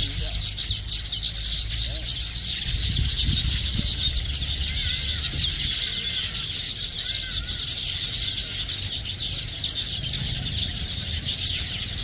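A nesting colony of weaverbirds chattering, many birds calling at once in a dense, steady mass of high chirps, with a low rumble underneath.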